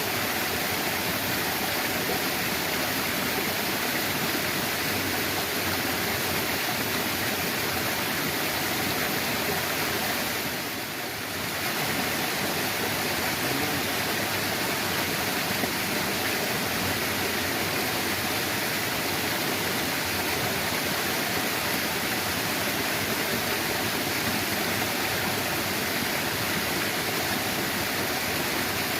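Steady rushing of flowing water, like water pouring from a drain outflow into a channel. It dips briefly about eleven seconds in.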